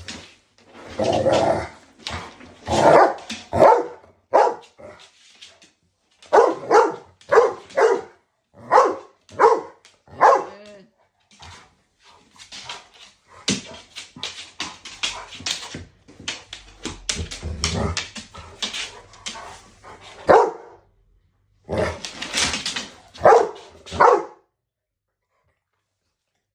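A dog barking again and again in quick runs of short barks, with a few yips, at a floor mop it is squabbling with; the barking stops a couple of seconds before the end.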